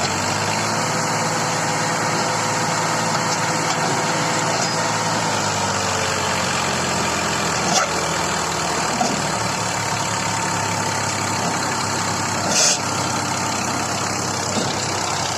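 Heavy diesel engine running steadily at a low speed, with a short hiss about twelve and a half seconds in.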